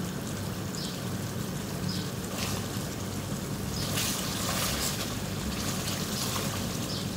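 Chicken karahi masala sizzling gently in an aluminium karahi while a wooden spatula stirs a pat of butter through it, with soft scraping swells a few times over a steady low hum.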